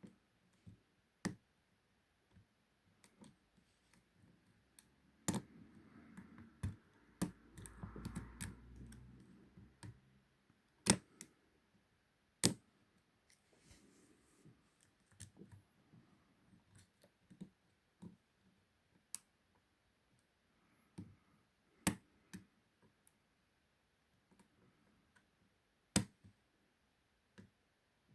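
Lock pick and tension wrench working in the keyway of a Ruma 50 mm padlock: sharp metallic clicks and taps at irregular intervals, with a stretch of soft scraping and rustling about a third of the way in.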